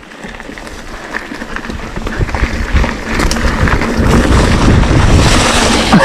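Mountain bike rolling fast down a dirt trail: tyre rumble and frame rattle mixed with wind buffeting the microphone, growing louder from about two seconds in.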